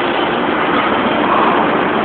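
Steady, even running noise of a small ride-on amusement train moving along its narrow track, heard from aboard.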